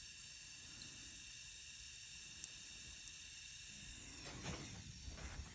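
Faint steady hiss of a heating tool warming a seized exhaust-manifold stud nut, with two light ticks midway and some light rattling near the end.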